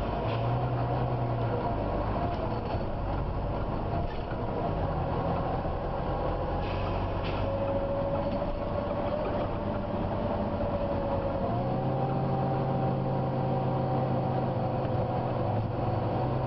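Volvo B9TL double-decker bus running, heard from on board, with a steady low hum and a whining tone that wavers and shifts in pitch about halfway through; brief hisses come twice, around the middle and near the end. The whine is typical of the bus's hydraulic cooling fan, the 'hoover' whine the uploader points to.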